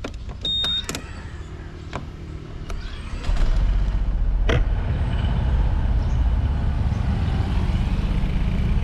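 A short high beep and a few sharp clicks, then a vehicle engine comes on about three seconds in and runs steadily with a low rumble.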